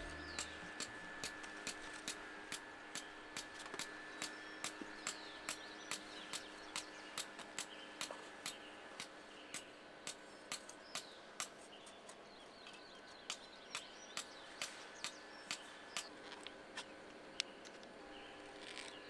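Quiet outdoor ambience with a regular sharp ticking, about two to three ticks a second, pausing for a moment about two-thirds of the way through.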